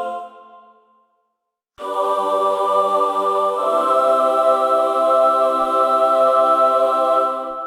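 Angel choir sound effect: ethereal choir voices holding a sustained chord. A previous chord fades out over the first second, then after a short silence a new chord comes in abruptly, swells to a brighter chord partway through, and begins to fade near the end.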